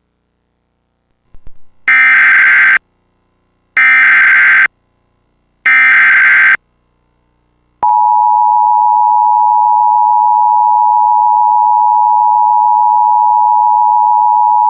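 Emergency Alert System header: three short digital SAME data bursts about a second apart, then about eight seconds in the steady two-tone EAS attention signal starts, marking the start of a broadcast severe thunderstorm warning.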